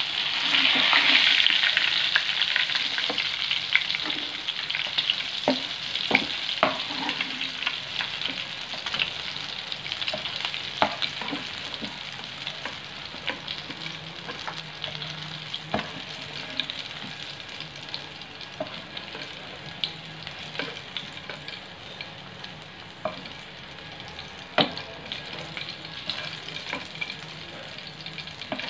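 Battered prawns deep-frying in a pan of hot oil: a steady sizzling hiss, loudest in the first couple of seconds and slowly dying down as the prawns finish cooking. Scattered clicks and scrapes of a slotted metal spatula against the pan as the fried prawns are lifted out.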